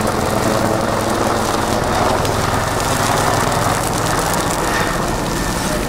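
Dry brush burning close up, a steady crackling rush of flame, over a low steady engine drone.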